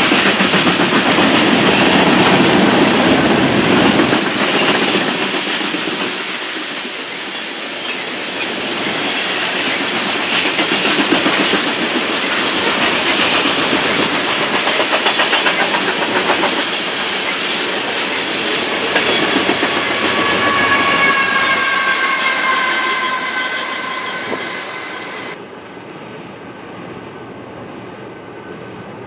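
Freight train of BNSF covered hopper cars rolling past, wheels clattering over the rail joints with a steady rumble. In the second half, a high ringing tone that sags slightly in pitch runs for about six seconds. Then the sound drops abruptly to a quieter, duller background.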